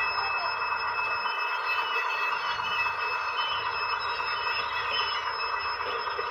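Model-railway DCC sound from Soundtraxx decoders in a small locomotive and a boxcar, played through their small onboard speakers: a steady running sound with faint, scattered wheel squeals as the train creeps along.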